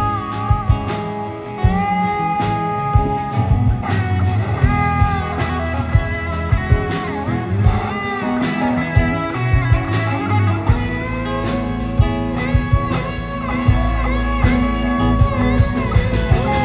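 Live blues-rock band: an electric guitar solo of held notes bent up and down, over bass guitar and drums.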